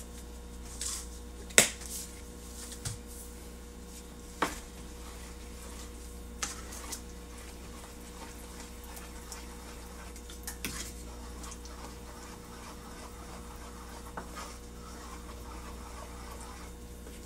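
Scattered clinks and knocks of kitchen utensils against cookware while baked beans are being seasoned and stirred, the sharpest about a second and a half in, over a steady low hum.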